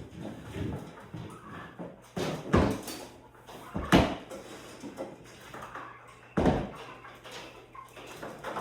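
A few sharp knocks or thumps, the loudest about halfway through, with softer handling noise between them.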